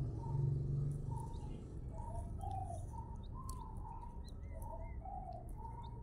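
Newly hatched quail chicks calling: short soft calls repeating about twice a second, with a few brief high chirps and small ticks of beaks pecking crumble feed in a plastic dish. A low hum underneath is loudest in the first second.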